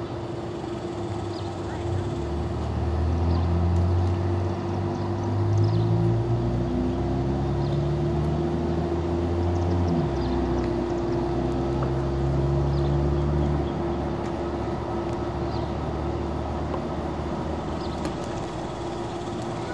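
Car engine and road noise heard from inside the cabin while driving, with a steady hum throughout. The engine note rises and shifts pitch several times between about 2 and 14 seconds in, then settles lower.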